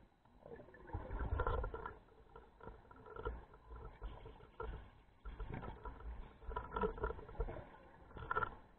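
Scuba diver's breathing heard underwater: bubbly exhalations from the regulator in irregular bursts, a long one about a second in and more from about five seconds on.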